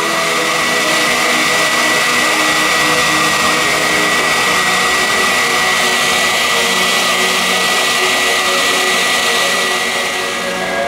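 Model tracked firefighting fan unit (an RC LUF) running steadily: a high, even whine from its fan with rushing air as it blows a water mist.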